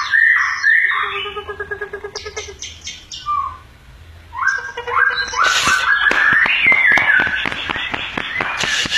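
Caged songbird singing loudly. It gives a run of repeated whistled notes and a fast rattling trill, pauses briefly about four seconds in, then resumes with a busier stretch of whistles mixed with rapid clicking notes.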